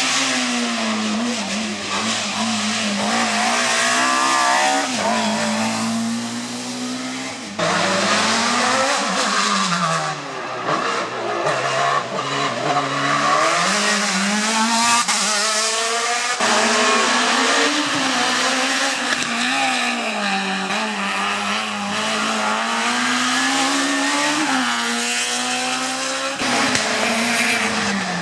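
Hill-climb race cars' engines revving hard, the pitch climbing and dropping again and again through gear changes and corners. The sound changes abruptly a few times, about seven seconds in and again past the middle, as the footage cuts from one car to the next.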